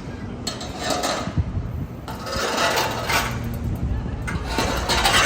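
Outdoor city ambience with indistinct voices of passers-by and swells of background noise that rise and fall every second or so.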